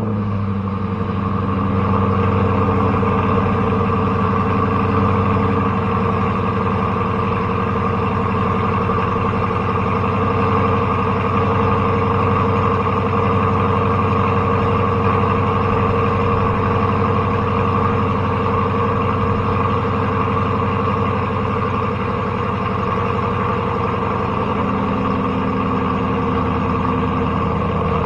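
Dodge Durango R/T's 5.7 L Hemi V8 idling steadily just after a cold start, still on its stock camshaft.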